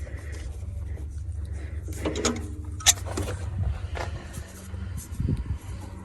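Scattered clicks and scrapes of hands working parts and tools while fitting a heater hose, with one sharp click about three seconds in, over a steady low hum.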